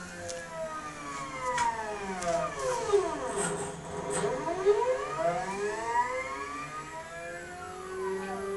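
Stepper motors of a home-built CNC machine, NEMA 24 and 34 driving 5 mm-pitch ball screws, whining as they move an axis. The whine glides down to a low point about halfway through as the motors slow almost to a stop, then rises again as they speed back up. A few short clicks are heard during the move.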